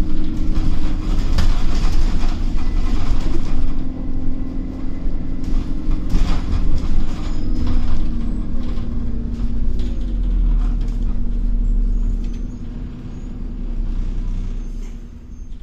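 Diesel engine and drivetrain of an Alexander Dennis Trident Enviro400 double-decker bus heard from inside as it drives: a steady low rumble with an engine tone that shifts in pitch, and occasional knocks and rattles. It eases off in the last few seconds.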